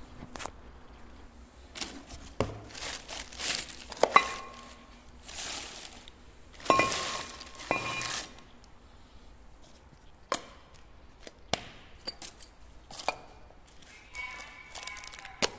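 Hand tools and metal parts being handled during front brake disc and pad work: scattered knocks and clicks, a few short ringing metal clinks, and stretches of scraping and rattling.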